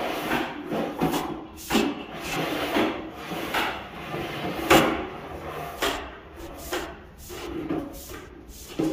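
Straw broom sweeping a tile floor in brisk, scratchy strokes, about one or two a second, with a few sharper knocks among them.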